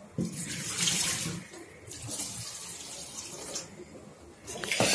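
Water splashing into a stainless steel sink in three bursts as spinach leaves are rinsed in a steel bowl and the water is poured off, the last burst the loudest.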